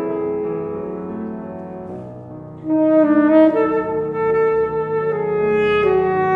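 Background music: a saxophone playing a slow melody of long held notes. The phrase fades over the first two seconds or so, and a louder phrase starts just under three seconds in.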